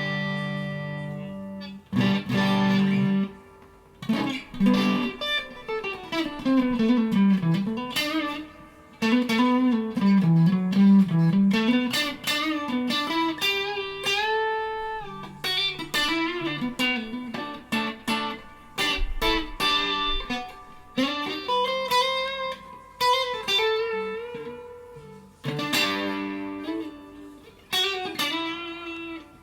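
PRS Silver Sky electric guitar through a Mesa Triple Crown amplifier and pedals, playing clean-toned lead phrases of single-note runs and bends with chords in between.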